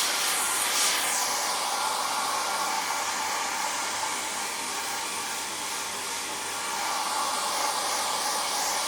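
Handheld hair dryer running steadily: a continuous rush of blown air over the whine of its fan motor, dipping slightly in loudness partway through.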